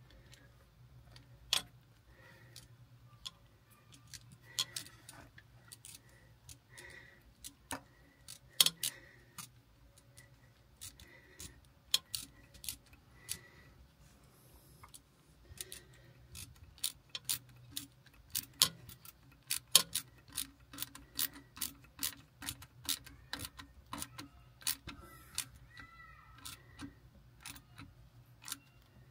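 Irregular metallic clicks and clinks of hand tools on a boat's inboard engine, with a few quick runs of ticks, as hoses and their clamps are worked on. A faint steady low hum lies underneath.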